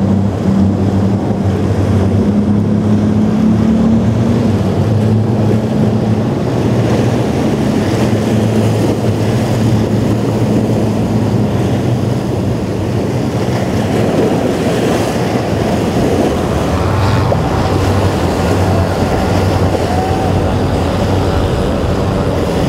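Boat engines running through rough inlet water, with waves washing and wind buffeting the microphone. A steady low engine hum holds throughout, and a second, higher engine note joins about two-thirds of the way in.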